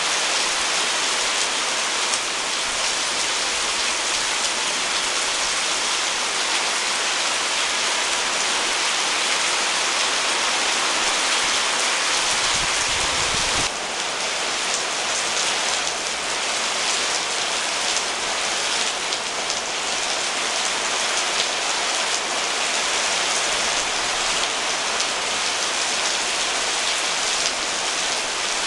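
Steady rain falling on dense tropical garden plants, an even hiss of drops pattering on leaves. It gets a little softer about halfway through and then carries on.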